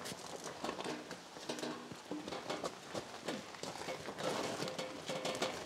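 Footsteps crunching on gravel with irregular knocks and clanks from a hand truck carrying a large air compressor tank as it is maneuvered.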